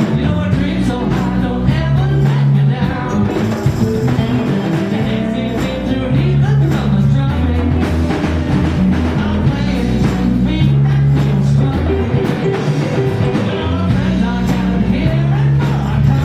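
Live rock band playing: electric guitars, bass guitar and conga drums, with singing over a repeating bass line.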